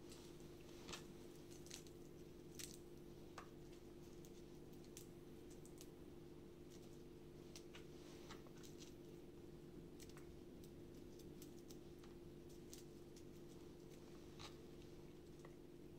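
Faint, irregular clicks and crunches of a small kitchen knife cutting through raw peeled potato and meeting the cutting board, over a steady low hum.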